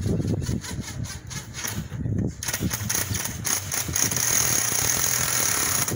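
Cordless drill running, driving a screw into the fascia, starting about two and a half seconds in and running steadily.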